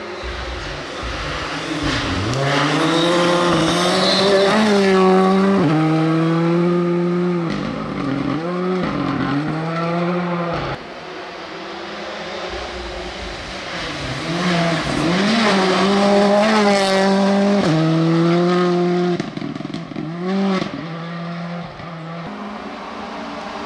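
Rally car engines at full throttle, the pitch rising then dropping sharply again and again as the drivers shift gears. This happens in two loud stretches, two passes with a brief lull between them.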